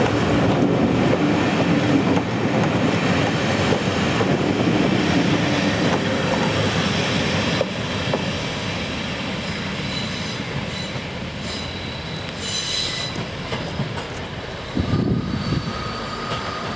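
Passenger coaches of a steam-hauled train rolling past on curved track, a steady rumble of wheels on rail with thin high wheel squeal from the curve, strongest briefly about two-thirds of the way through.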